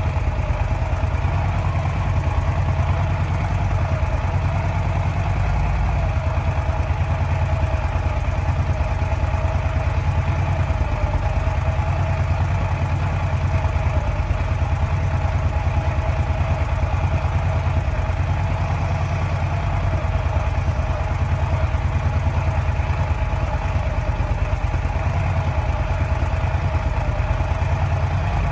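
2008 Harley-Davidson Road King Classic's V-twin engine idling steadily with an even, low pulsing beat.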